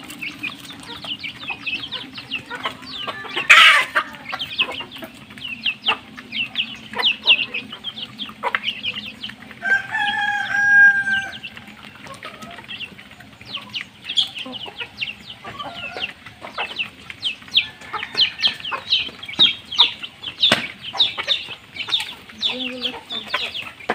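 Chicks peeping rapidly and without let-up while desi hens cluck, as the flock pecks rice off concrete, with scattered sharp pecking taps. About ten seconds in, one bird gives a single drawn-out call lasting about a second and a half.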